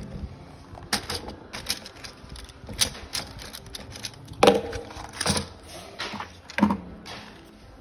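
Handling noise of a replacement phone LCD screen, its bubble-wrap packing and small parts on a silicone repair mat: a string of irregular light clicks, taps and rustles, the loudest about four and a half seconds in.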